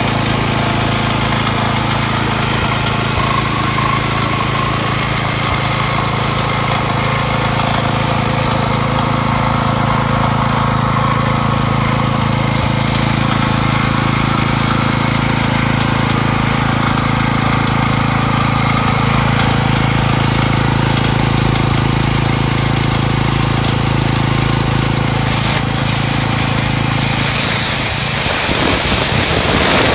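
Iwata SUE-222P engine-driven air compressor running steadily, its small gasoline engine and piston pump going together. About two seconds before the end a loud rushing hiss of compressed air takes over as the tank's drain valve is opened.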